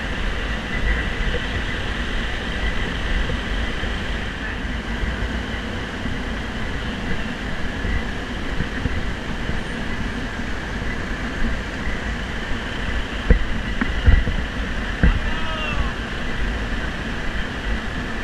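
City street traffic noise, a steady rumble of cars. A few sharp knocks come about three-quarters of the way through, followed by a few short chirps.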